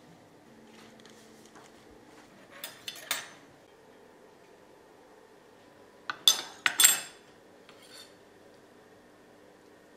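Kitchen utensils and dishes clinking: a few sharp clinks about three seconds in, then a louder run of three or four ringing clinks a few seconds later.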